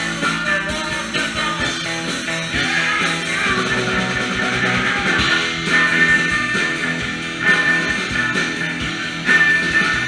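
Live rock band playing: electric guitar, bass guitar and drum kit, with a high note held over the second half.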